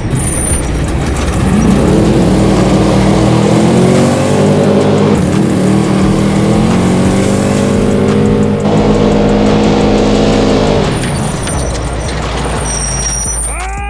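Subaru WRX STI rally car's turbocharged flat-four engine at full throttle on a timed run, its pitch climbing through the gears and dropping again several times as it shifts and brakes, then easing off near the end.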